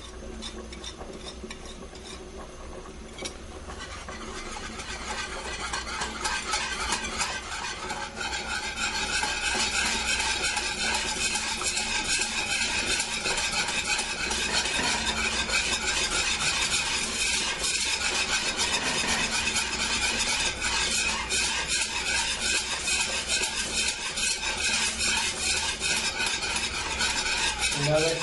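Wire whisk beating roux into hot brown stock in a saucepan, a fast steady scraping and swishing against the pan as the sauce binds and thickens. It starts softly and grows louder over the first several seconds.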